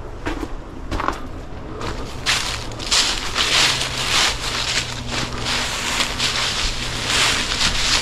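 Footsteps crunching through dry fallen leaves at a walking pace, growing louder about two seconds in.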